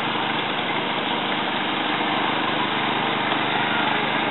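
Boat engine idling steadily, under an even rushing hiss.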